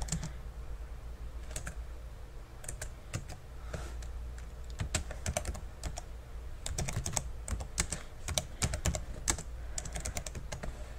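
Computer keyboard being typed on: scattered keystroke clicks in short runs with pauses, coming faster in the second half, over a low steady hum.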